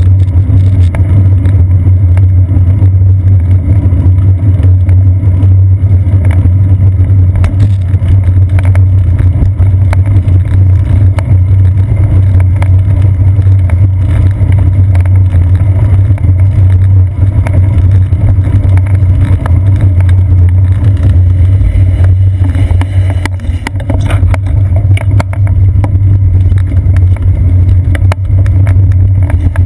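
Loud, steady low rumble of wind and road vibration picked up by a seat-post-mounted action camera on a bicycle riding over wet pavement, with scattered small knocks.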